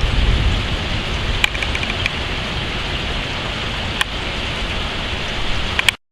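Steady rain falling, with wind rumbling on the microphone in the first second and a few sharp ticks scattered through it. The sound cuts off abruptly just before the end.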